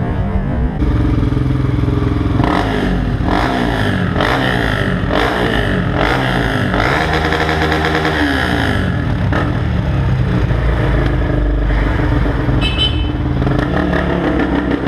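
Off-road dirt bike engine running and revving, its pitch rising and falling through the middle.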